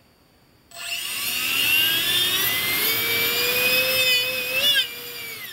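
Electric ducted fan with a five-blade rotor on a brushless outrunner motor spinning up under throttle: it starts suddenly about a second in, its whine rising in pitch and then holding, with a brief wobble before the throttle is cut near the end and it winds down. With the trial balancing weight at the 6 o'clock position it sounds a little worse, a sign the fan's imbalance is getting worse.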